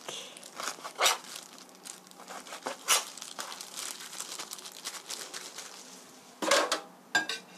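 Kitchen knife cutting raw boneless chicken into bite-sized pieces on a plastic cutting board: irregular knocks of the blade against the board, the loudest about one and three seconds in. A short louder noise comes near the end.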